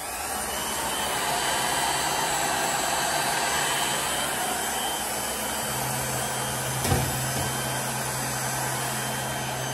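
Electric heat gun running steadily, its fan blowing hot air as a load of about 12 amps on the circuit. A low hum joins a little past halfway, and there is a single knock about seven seconds in.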